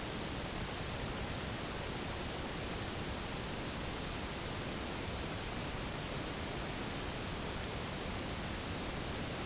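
Steady, even hiss with no distinct sounds in it: background noise of the recording.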